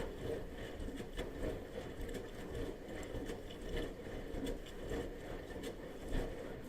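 Bosch front-loading washing machine in its wash cycle: a steady low churning with water sloshing and faint knocks of the tumbling laundry.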